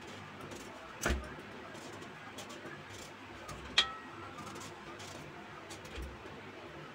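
Steel knife peeling a raw papaya over a stainless steel plate: a soft thump about a second in, faint scraping and small ticks, and a sharp metallic clink with a brief ring against the steel plate near four seconds in.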